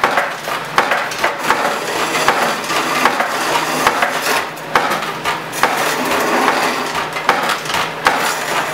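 Skew chisel cutting a spinning spindle of kiln-dried yellow spruce on a treadle lathe: a continuous scraping, peeling noise broken by frequent sharp clicks and knocks. The cut chatters, which the turner puts down to the dryness of the wood.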